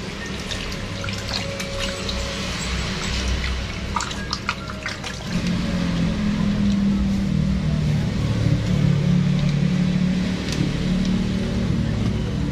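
Hands rinsing fish in a bowl of water in a stainless steel sink: splashing and sloshing for the first few seconds, with a few sharp knocks around four seconds in. From about five seconds a louder steady low hum comes in underneath.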